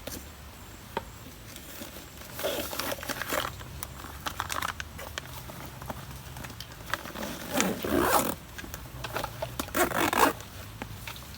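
Handling noise: several short, irregular bursts of rustling and scraping, the longest a few seconds apart.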